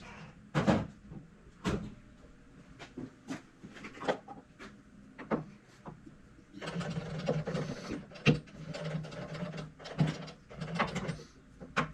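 Sharp metal clanks and knocks from a steel workpiece and tools being handled and clamped on a machine, with a denser stretch of rattling and scraping about halfway through.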